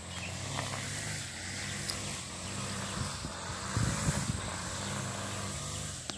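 A small engine drones steadily in the background, one even pitch, with a thin high whine above it. A few louder low bumps come about four seconds in.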